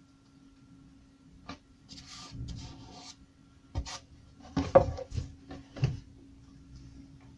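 Wood being handled on a workbench: short rubbing noises and a handful of knocks, the loudest a little under five seconds in, over a faint steady hum.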